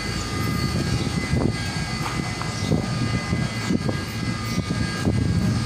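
A steady machinery drone with a few faint whining tones above a low rumble, and several light knocks.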